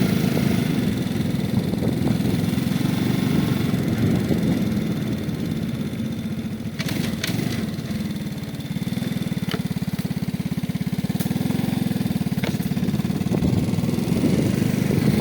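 An engine running steadily at idle, easing off briefly about eight seconds in, with a few faint clicks.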